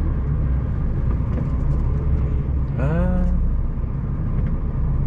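Heavy goods vehicle's diesel engine running steadily, heard from inside the cab as a low rumble while the truck manoeuvres slowly. A short voiced sound comes about three seconds in.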